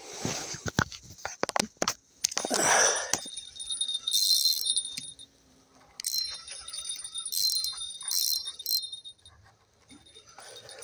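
A spinning reel gives short, high buzzing bursts again and again while a hooked fish is played on a loosened drag. A rushing, rustling noise in the first three seconds comes before the bursts.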